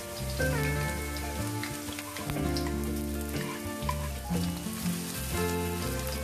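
Chopped garlic and sliced shallots sizzling in hot cooking oil in a stainless steel wok, a steady fizz with scattered small pops, over background music with held notes.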